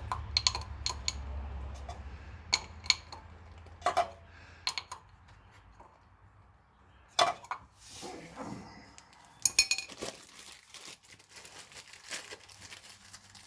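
Metal tools and fittings clinking and clicking against each other as they are handled: scattered sharp single clinks, with a quick cluster of them about ten seconds in.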